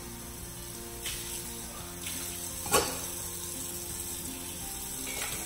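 Water running from a kitchen tap, a steady hiss, with one sharp knock, like a cup set down, a little under three seconds in.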